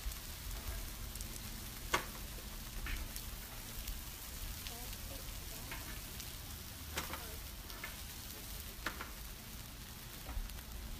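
Marinated short ribs and sliced steak sizzling steadily on a Blackstone flat-top griddle, with a few sharp clicks of metal tongs on the steel cooking surface, the loudest about two seconds in.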